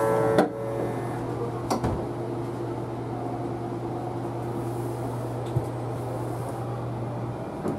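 Steady low hum of a train car's equipment while it stands still, with a few sharp clicks. A melody's last tones are cut off by a click just after the start, and the hum stops near the end.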